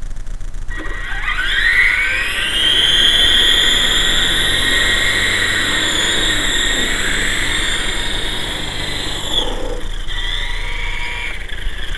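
Electric motor and rotors of a GT Model QS8006 RC helicopter spinning up with a rising whine about a second in, then running at a steady high whine. Near ten seconds in it winds down, followed by a brief second rise and fall.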